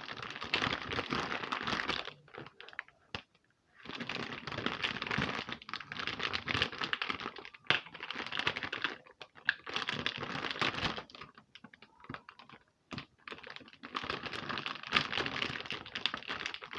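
Plastic packaging crinkling and rustling as it is pulled open by hand, in several bursts of rapid crackling with short pauses between.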